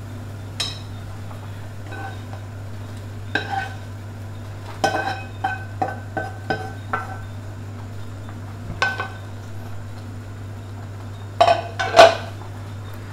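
A spatula scraping and knocking against a nonstick wok and a stainless steel pot as pieces of omelet are slid into the soup: scattered clinks and knocks, the loudest cluster near the end, over a steady low hum.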